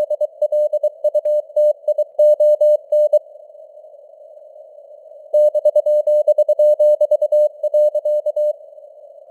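Morse code sent at 23 words per minute as a single mid-pitched tone keyed in dots and dashes over a narrow hiss of simulated radio noise. The keying stops for about two seconds a third of the way in, leaving only the hiss, then resumes and stops again about a second before the end.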